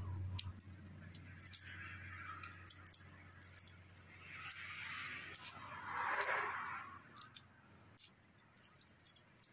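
Light, irregular clicking and short bouts of scraping rustle as thin copper lead wires of an electric motor stator are handled and pulled apart with a small tool, disconnecting the start winding; the loudest rustle comes about six seconds in.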